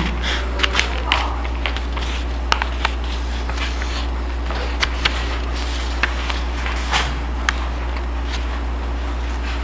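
Steady low hum, with about a dozen small clicks and taps scattered through it from papers and pens being handled on a table.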